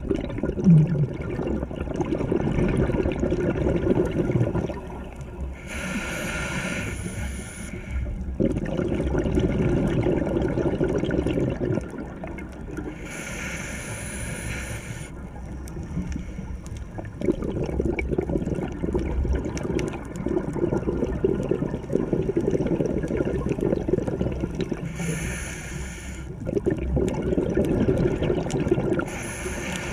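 Scuba diver breathing through a regulator underwater: four short hissing inhales, between longer stretches of exhaled air bubbling and rumbling.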